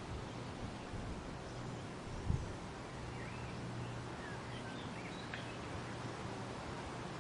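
Wind rustling through weeping willow leaves, a steady hiss, over a steady low hum. A brief low thump about two seconds in, and a few faint bird chirps around the middle.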